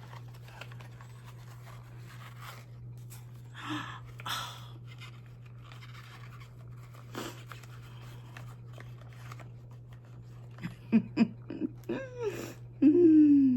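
Soft rustling and crinkling of foam packing as a small boxed figurine is unwrapped by hand, over a steady low hum. Near the end come a few short voice sounds, the loudest a falling tone.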